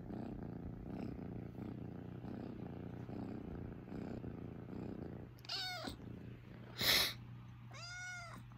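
Kitten purring close to the microphone, then meowing a few short times in the last few seconds, each meow rising and falling in pitch.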